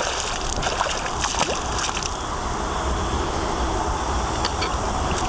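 Water sloshing and splashing around a hooked snakehead held in the water while the lure works free.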